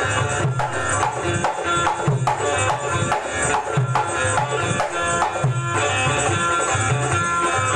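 Tabla and a hand-played barrel drum keep a steady rhythm with deep bass strokes under a sustained melody on an Indian banjo (bulbul tarang): an instrumental passage of devotional folk music.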